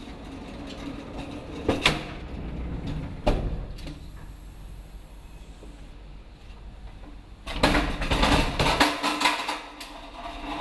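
Loading-dock handling noise: two sharp knocks, then a burst of clattering about seven and a half seconds in, over a steady low hum.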